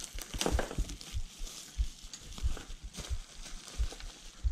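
Bubble wrap crinkling and packing tape being peeled off by hand, an irregular run of small crackles with soft knocks from handling.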